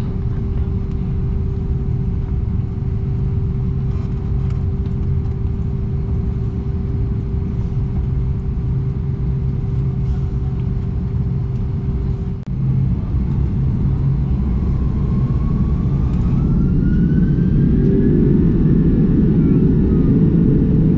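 Airbus A330-300's Pratt & Whitney PW4168A turbofans heard from a cabin window seat over the wing: a steady rumble with a hum at first. From a little past halfway the engines spool up with a rising whine and the rumble grows louder, as takeoff thrust is set.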